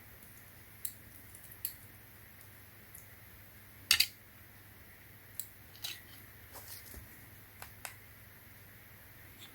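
Scattered small plastic clicks and taps from handling the solar flood light and plugging in its cable, with one louder double click about four seconds in.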